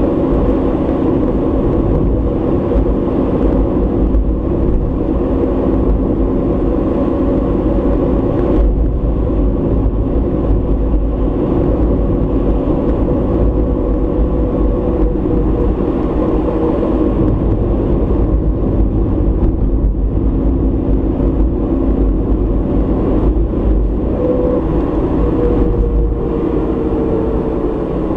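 Car driving along at a steady speed, as recorded by a dashboard camera inside the cabin: a constant low engine and tyre rumble with a steady hum, one tone sinking slightly near the end.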